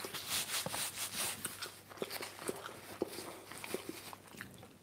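Faint rustling and scattered small clicks of hands handling and pulling apart something soft right in front of the microphone.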